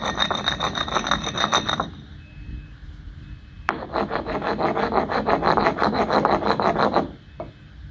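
Stone pestle ground back and forth in a cement imitation stone cobek, a gritty scraping of quick, repeated strokes; the cement mortar is the one that crumbles and turns sandy with use. After a short pause, the same scraping in a natural volcanic-stone cobek for about three seconds.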